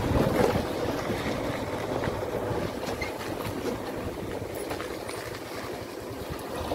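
Motorcycle riding along at low speed: engine running under the rumble of wind buffeting the microphone, easing off a little near the end.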